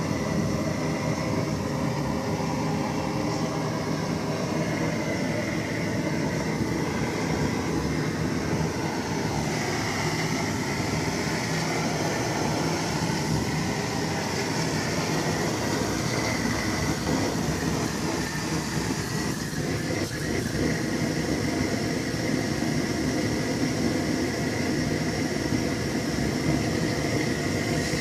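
MTZ-82 tractor's four-cylinder D-240 diesel engine running steadily, warming up after a cold start at −7 °C.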